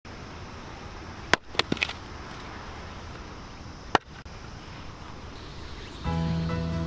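Axe chopping firewood: a sharp chop a little over a second in, followed quickly by a few lighter knocks, and another sharp chop about four seconds in. Background music begins near the end.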